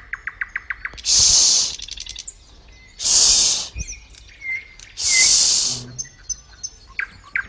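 A voice making a long hushing "shh" sound three times, about two seconds apart. Quick bird-like chirping ticks come in the gaps.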